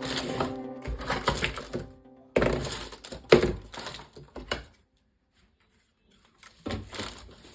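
Sharp clicks, knocks and rattles of plastic toy parts being handled, in several short clusters with a silent gap of about a second and a half in the middle.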